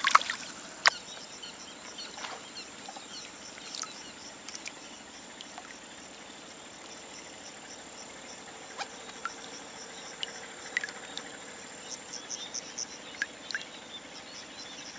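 Quiet waterside ambience: a steady high insect drone with scattered faint chirps and small clicks. A small splash of water at the very start and a sharp click about a second in.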